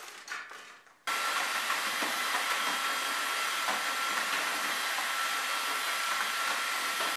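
A small electric motor running steadily at one pitch, with a hiss over it. It starts suddenly about a second in and stops suddenly.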